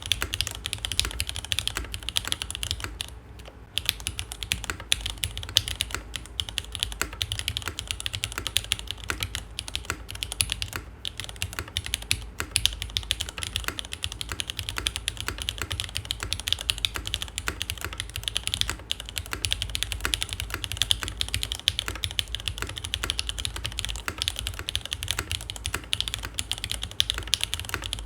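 Continuous fast typing on a KMG TKL mechanical keyboard: lubed Cherry MX Black linear switches in an aluminium plate, sandwich-mounted, with GMK keycaps. It gives a dense run of keypress clacks with a brief pause about three seconds in.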